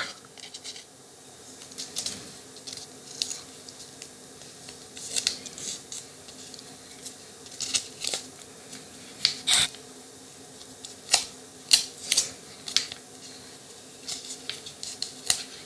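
Tape being pulled off the roll and wrapped around a soldered cable joint: irregular crackles and sharp ticks with pauses between, over a faint steady hum.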